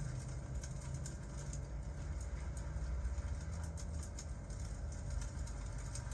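Fireplace crackling with scattered small pops and snaps over a steady low rumble, with rain in the background.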